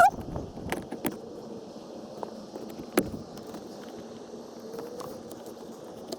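A few light clicks and handling noises from the blower motor's wiring connector as it is greased and plugged in, over a steady faint hiss.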